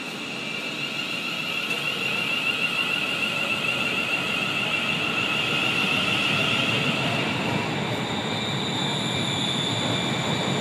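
ScotRail passenger train moving along the platform and pulling away, its wheels rumbling on the rails. Over the rumble runs a high steady whine, which gives way to a higher-pitched one about eight seconds in.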